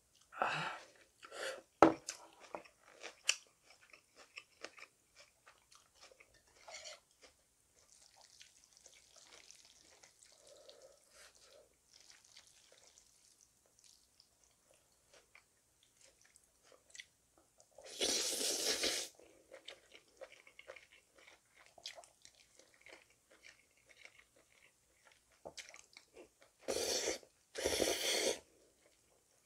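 Close-up eating sounds of cold buckwheat noodles (naengmyeon): sipping broth, then quiet chewing. There is a sharp knock about two seconds in. Loud noodle slurps come once about two-thirds of the way through and twice in quick succession near the end.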